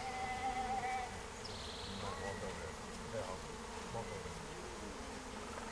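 Honeybee swarm buzzing steadily, a continuous hum of many bees flying around the hive box.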